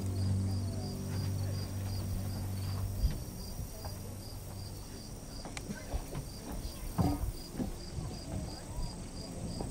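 Outdoor ambience of insects chirping in an even pulse, about three chirps a second, with scattered sharp knocks, the loudest about three and seven seconds in. A low steady hum stops about three seconds in.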